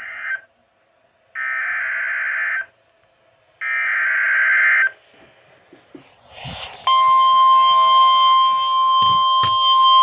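Emergency Alert System SAME data tones: three short, loud electronic bursts about a second apart, followed about 7 seconds in by the alert's loud, steady electronic attention tone, which announces a new warning.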